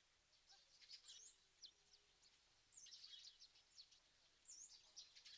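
Faint small birds chirping: three short runs of quick high chirps, about a second and a half to two seconds apart, over near silence.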